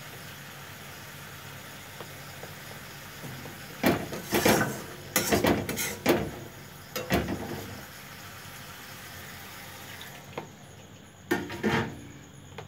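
A flat steel spatula scrapes and knocks against a steel kadai as a thick masala is stirred. The loud strokes come in a quick run starting about four seconds in, over a low steady hiss from the pan. Near the end there are a few more metal clinks as a steel bowl is tipped against the kadai.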